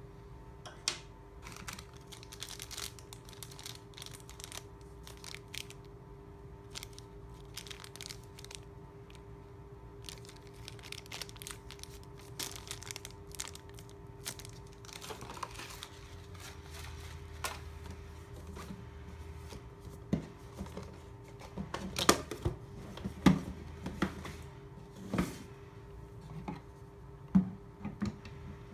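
A thin clear plastic bag crinkling and rustling as it is handled and opened. Near the end come several sharp knocks as the plastic RodeLink transmitter and receiver units are set down on a wooden desk.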